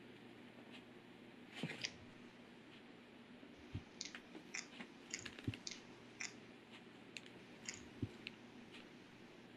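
Leopard gecko catching a cricket and chewing it: a sharp snap about a second and a half in, then an irregular run of faint crunchy clicks as it chews, over a faint steady low hum.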